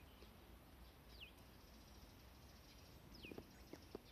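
A wild bird calling faintly, a short whistle that falls in pitch, repeated a few times, over quiet woodland ambience. Faint clicks and taps come near the end.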